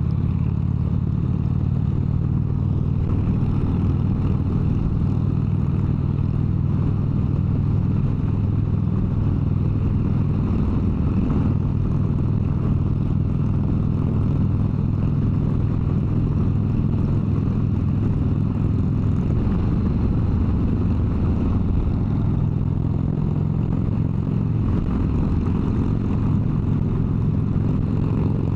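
Harley-Davidson V-twin motorcycle engine running steadily at highway speed, its pitch holding nearly constant with only slight shifts in engine speed.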